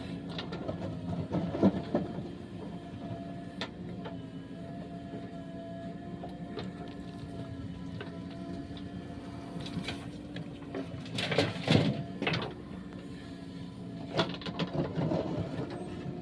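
Heavy machinery's diesel engine running steadily, with occasional metallic clanks and knocks, loudest about eleven to twelve seconds in.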